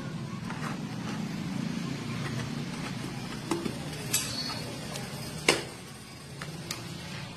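Snap-on plastic lid of a 1-litre paint tub being prised off by hand: a few sharp clicks and snaps, the loudest about five and a half seconds in as the lid comes free. A steady low hum sits underneath.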